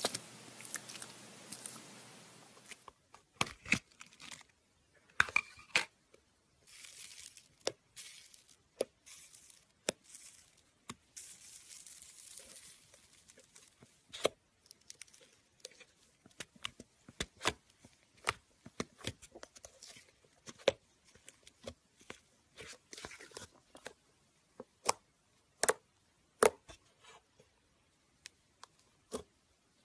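Hands squishing, stretching and pressing slime: a run of sharp, irregular pops and crackles with short sticky tearing sounds between them.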